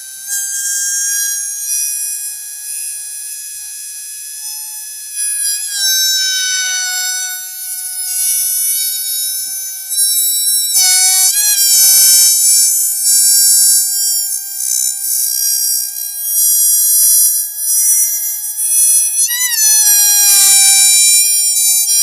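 Rubber balloon squealing as air is let out through its stretched neck: a long, steady, high-pitched whine, wavering and breaking briefly about six, eleven and twenty seconds in.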